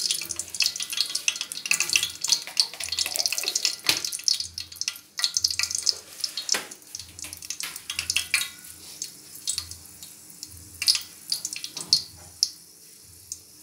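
Fenugreek seeds crackling and spluttering in hot oil in a steel pan. There are many sharp pops at first, which thin out toward the end as the seeds start to brown. A faint low hum pulses about once a second underneath.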